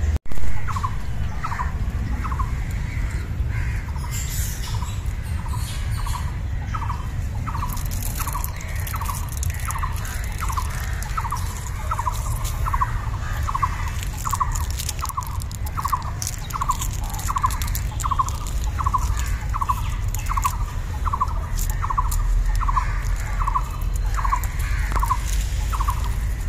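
A bird calling one short note over and over at an even pace, about three notes every two seconds, over a steady low rumble, with scattered crackles of dry leaves and twigs.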